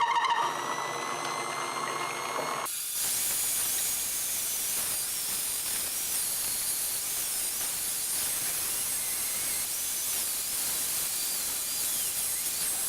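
Music for the first few seconds cuts off abruptly. Then comes a steady hiss of the homemade wood lathe running with work on the spinning wood, with a faint wavering whine.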